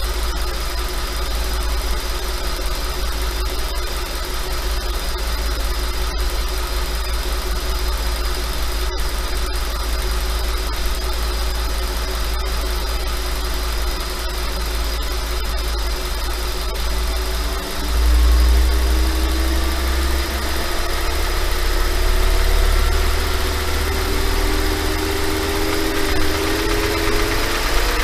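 5.2 FSI V10 engine idling steadily, then from about two-thirds of the way through its revs come up and climb slowly. At slightly raised idle it rattles, which the owner wonders may be piston slap.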